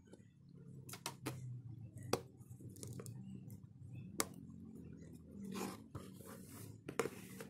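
Hands working on a disassembled Xiaomi Redmi 4A phone: a handful of sharp clicks from the screwdriver and small plastic and metal parts, then a few seconds of scraping against the plastic frame near the end.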